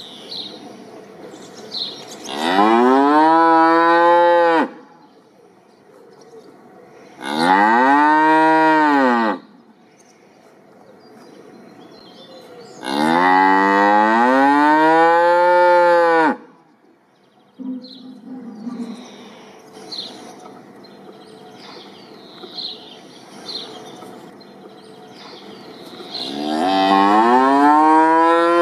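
Cattle mooing: four long, loud moos, each rising and then falling in pitch, with pauses of several seconds between them.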